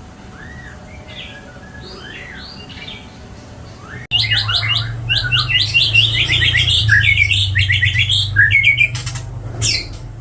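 White-rumped shama (murai batu) singing a varied song laced with mimicked calls. Faint arching whistles come first, then, about four seconds in, a sudden louder run of rapid chirps and trills over a steady low hum.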